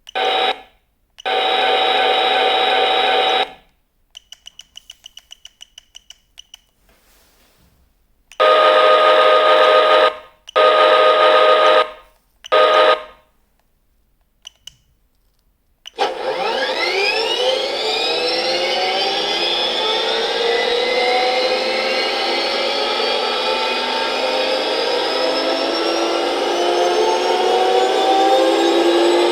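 Recorded tank sound effects from a DasMikro model-tank sound unit: several short buzzing effects and a quick run of about a dozen clicks, then, about sixteen seconds in, the M1 Abrams gas-turbine start-up, a whine climbing in pitch that settles into a steady running turbine.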